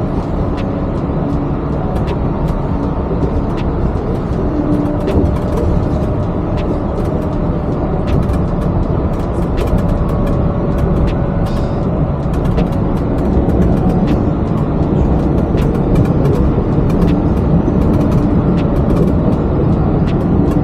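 Inside a Yurikamome rubber-tyred automated guideway train running between stations: a steady running rumble with a faint steady whine and scattered light clicks.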